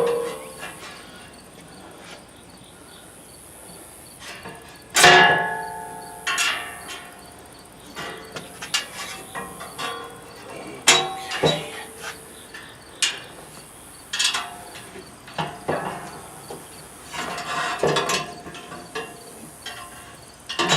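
Steel welding-table parts clanking and ringing as they are handled and bolted together: a string of irregular metal knocks, the loudest about five seconds in, each with a short ring.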